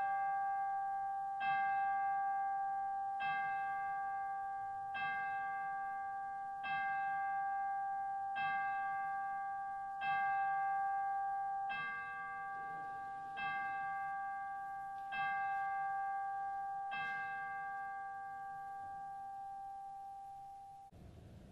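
A single bell tolled at a slow, steady pace, about eleven strokes roughly one every 1.7 seconds, each stroke left ringing into the next and the last fading out near the end.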